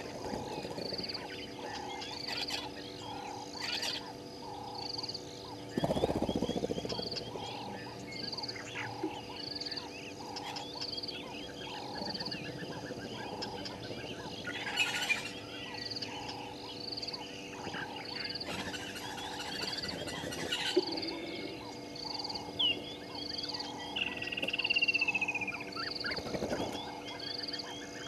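African bush at dusk: a chorus of frogs and birds, with calls repeating steadily about once a second under scattered bird calls. A single falling whistle comes near the end.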